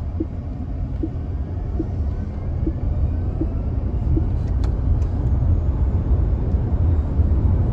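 Togg electric SUV accelerating hard from the inside: low road and tyre rumble swelling steadily with speed, with a faint rising whine of the electric drive motor.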